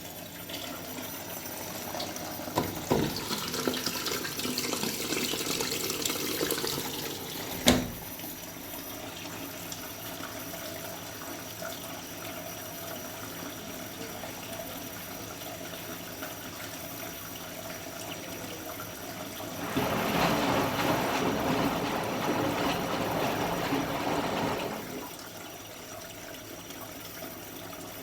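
Candy Formula Inox P 7.71X washing machine taking in water: a rush of water for about seven seconds that ends with a sharp click, a quieter spell, then a second rush of water lasting about five seconds, about twenty seconds in.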